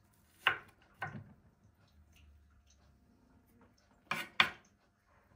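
Kitchen knife chopping onion on a wooden cutting board: two strokes in the first second or so, then, after a pause, two sharper knocks of the knife on the board close together about four seconds in.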